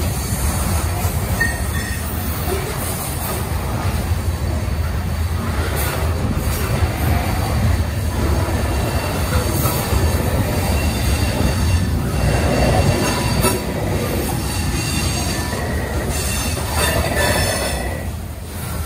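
Covered hopper cars of a freight grain train rolling past on steel rails: a steady low rumble of wheels on track, with faint high wheel squeal now and then, clearest near the end.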